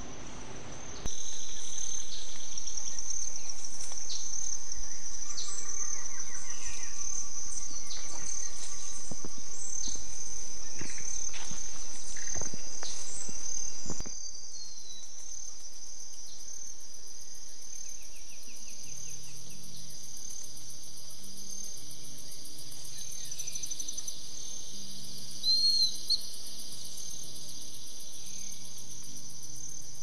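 A steady high-pitched insect drone from the forest, with faint bird chirps now and then. The sound drops a little in level and changes abruptly about 14 s in.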